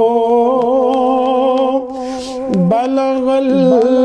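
A man singing a naat, holding long melismatic notes with a wavering pitch and taking a quick breath about two seconds in.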